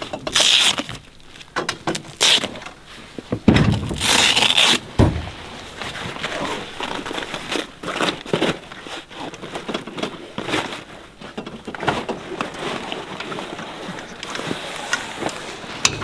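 Awning poles and straps being handled: a short scraping burst near the start and a longer one about four seconds in, then scattered clicks and knocks.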